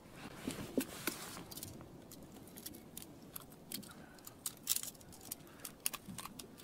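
Scattered light metallic clicks and rattles of pliers working a hook free from a rockfish's mouth, irregular, with a cluster of sharper clicks about halfway through.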